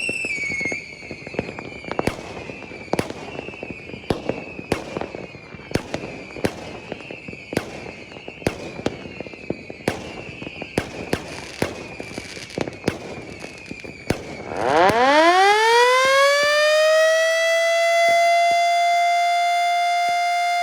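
Fireworks banging at irregular intervals, about one or two a second, over a faint high siren tone that slowly falls. About fifteen seconds in, a Yahagi S-10 electric motor siren starts up: its wail climbs quickly in pitch as the motor spins up, then holds a steady loud tone.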